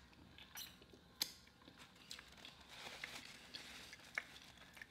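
Faint, close-miked eating noises: a few sharp wet mouth clicks from finger-licking, then the soft rustle of a paper napkin as the hands are wiped.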